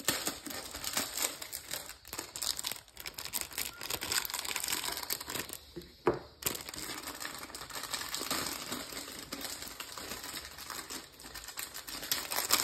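Plastic wrapper of a 1985 Topps baseball card rack pack crinkling as it is torn open and handled, with a brief pause and one sharp loud rustle about six seconds in.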